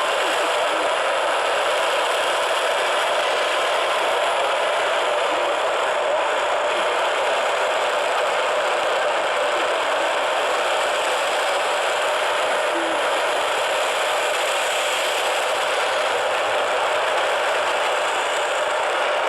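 A steady, even hiss of noise with a faint steady tone in the middle.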